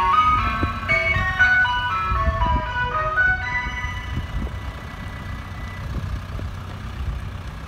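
Ice cream van chimes playing a quick electronic tune over the low rumble of the van driving off. The tune stops about three seconds in, one note hanging on, and the sound grows fainter as the van pulls away.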